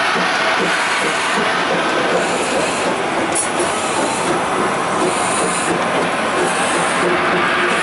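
Narrow-gauge steam train running along the track, a steady, even noise of the wheels and cars rolling.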